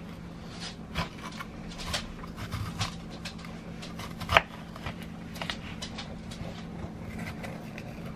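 Scattered light clicks, rustles and knocks of food being handled and prepared in a kitchen, with one sharp knock about four seconds in, over a steady low hum.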